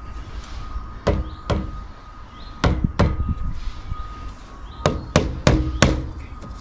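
A plastic drain pipe being knocked and worked home into its fitting: about eight sharp knocks, two pairs and then a quick run of four near the end.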